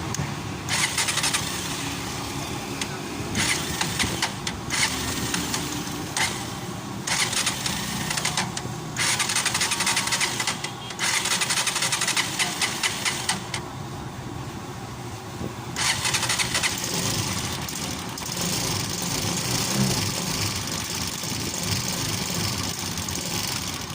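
Honda TMX125 Alpha's single-cylinder four-stroke engine being started and run just after a top overhaul, revved in repeated one- to two-second bursts with short drops between, then held running steadily for the last several seconds. It is running with its cover off, which shows the repair has cured the stalling.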